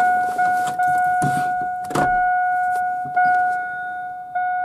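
Dashboard warning chime in a 2000 GMC Sonoma cab: one steady tone that restarts several times, with a few sharp clicks along with it.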